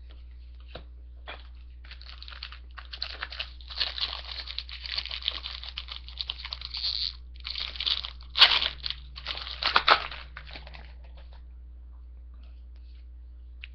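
Wrapper of a hockey card pack being torn open and crinkled by hand: a run of crinkling and tearing from about two seconds in, with its loudest rips near the end, stopping about eleven seconds in.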